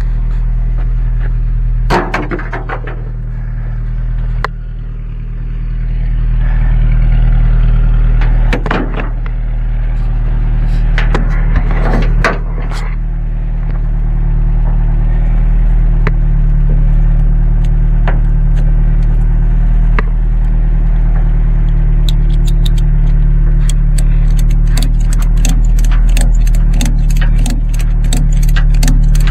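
A vehicle engine idling steadily, with loud knocks and rattles from the first half. Near the end comes a strap being tightened over the boat, clicking quickly and evenly, about three clicks a second.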